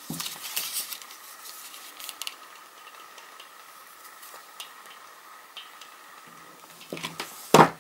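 Quiet paper handling while paper pockets are glued: light rustles and small clicks over a faint steady hum, with a louder rustle near the end.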